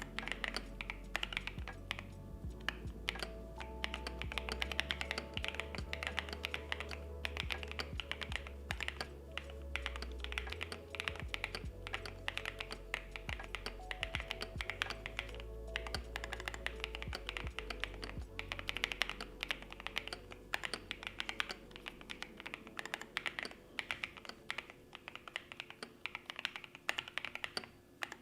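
Continuous fast typing on a CMM Studio Isabell60 mechanical keyboard fitted with JWK Carol switches on an aluminium plate, with Poron and PE foam dampening: a dense run of key clacks. Background music plays underneath, its bass dropping away about two-thirds of the way through.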